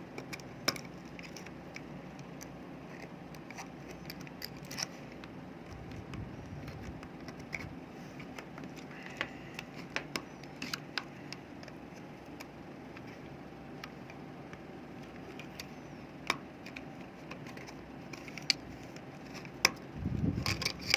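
Scattered light clicks and taps of a rechargeable flashlight's plastic parts being handled and taken apart, over a steady faint hum.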